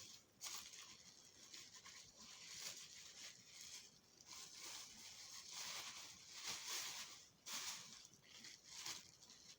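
Faint, intermittent rustling and crinkling of packaging being unwrapped.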